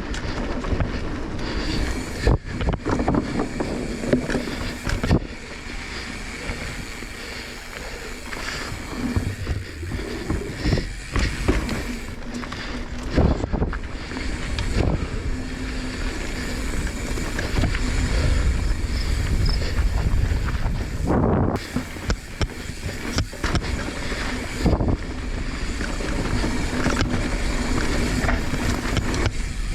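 Mountain bike descending a dirt jump line, recorded on a GoPro: wind buffeting the microphone and tyres rolling over dirt, with frequent rattles from the bike and sudden thuds, several of them strong, as it lands jumps and hits bumps.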